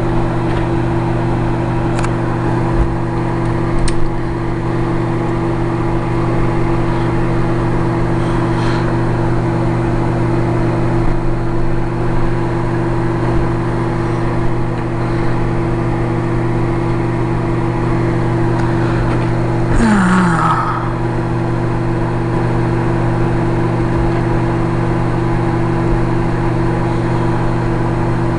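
Microwave oven running with a steady hum while it heats a paper lunch bag of popcorn kernels that have not yet started popping. A brief, short falling sound comes about two-thirds of the way in.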